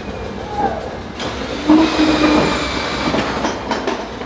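Electric rebar bending machine working a long steel reinforcing bar: metal scraping and clanking against the bending disc and pins. There are sharp knocks about a second in and near the end, and a steady hum about halfway through.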